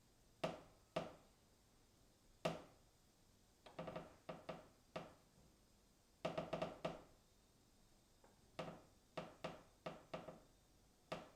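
A wooden beam creaking, heard from a distance: faint short creaks, some single and some in quick runs of several, each fading with a short echoing tail.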